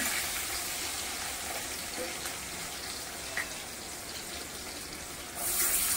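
Green chillies, mustard seeds, fennel and asafoetida frying in hot oil in a steel kadai: a steady sizzling hiss that grows louder near the end.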